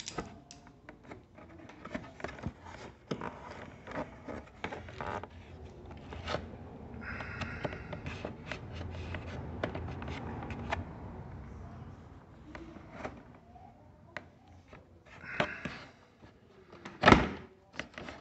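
Handling noises as hands work inside the scooter's plastic dashboard panel: scattered clicks, scrapes and rubbing, with one sharp knock near the end.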